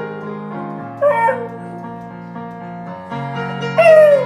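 A beagle howling along to a piano: two short howls, each falling in pitch, one about a second in and a louder one near the end, over steady piano chords.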